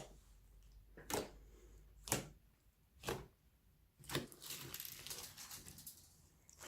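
Slime being pressed and squished by hand, giving sharp clicks and pops about once a second, then a stretch of crackling from about four seconds in as the slime is worked.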